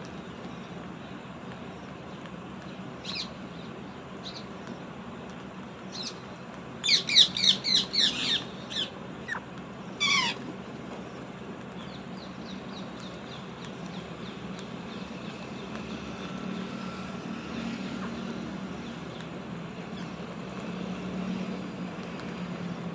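Pet parrot calling: a few single calls, then a quick run of about eight loud, sharp calls, followed by two calls that fall in pitch and some fainter chirps, over a steady low background hum.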